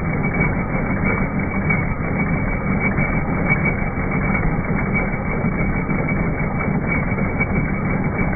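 Bestsew B-3620 15-needle embroidery machine running and stitching, a steady fast mechanical clatter from the needle bar with a low hum underneath.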